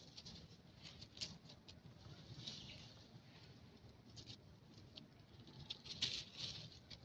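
Faint, scattered rustles and crackles of dry leaf litter as macaques shift and move on the forest floor, with a louder cluster about six seconds in.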